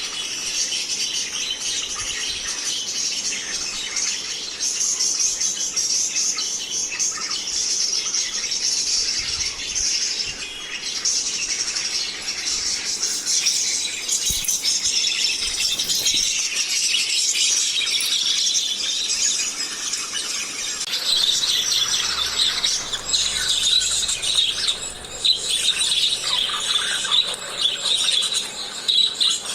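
A group of small pet parrots sold as love birds chattering and squeaking continuously in many high, overlapping chirps. The chatter grows busier and louder about two-thirds of the way through.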